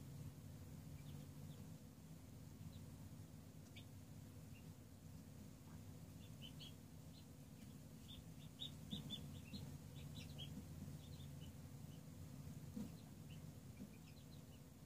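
Newly hatched chicks and ducklings peeping faintly: short, high peeps scattered through, coming in a quick flurry from about six to eleven seconds in, over a steady low hum.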